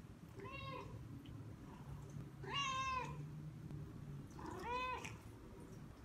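Domestic cat meowing three times, the middle meow the loudest: the cat is asking for water.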